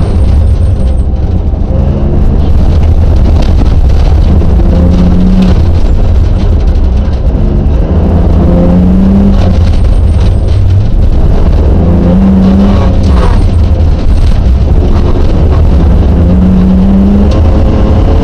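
Rally car engine driven hard, heard from inside the cockpit: a loud, steady drive noise under an engine note that climbs and drops again about every three to four seconds.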